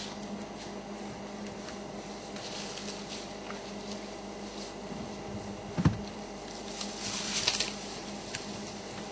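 African elephants feeding in thick bush: scattered crackles of twigs and leaves being broken and stripped, with one louder low thud about six seconds in and a brief flurry of crackling soon after, over a steady low hum.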